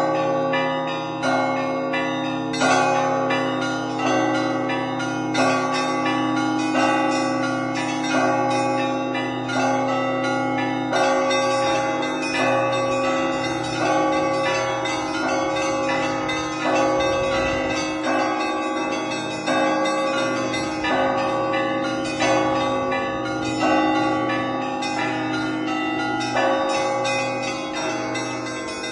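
Russian Orthodox church bells rung in a festive peal (zvon): the deep bells hum on beneath busy patterns of smaller bells, with a heavier stroke coming about three times every four seconds.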